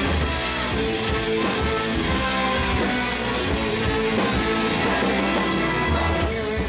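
Live rock band playing on stage, with electric guitar over a drum kit's steady beat, heard through the club's loud PA.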